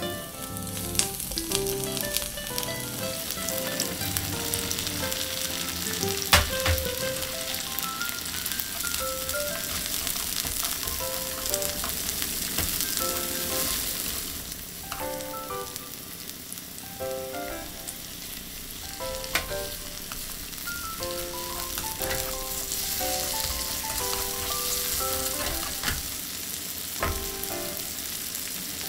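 Sliced garlic, sausage and mushrooms sizzling in oil in a frying pan, a steady hiss, stirred now and then with wooden chopsticks and with a few sharp clicks. A soft melody of short notes plays underneath.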